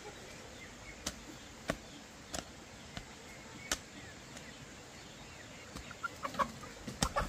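A long-handled hoe striking soil and stones in a few sharp, irregular chops. A hen clucks briefly near the end.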